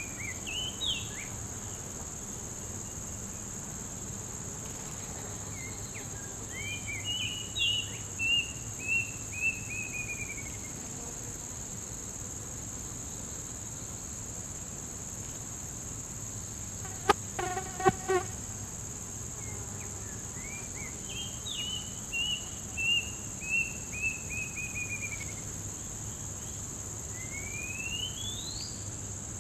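Steady high insect drone, with a songbird giving three runs of quick, downward-sliding chirped notes and a rising whistle near the end. A sharp click and a short buzzy note a little past the middle.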